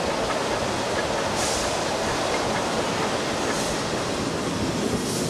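Queensland Railways A10 class No. 6 steam locomotive running, heard from its footplate: a steady rumble of engine and wheels, with a few short hissing puffs of steam.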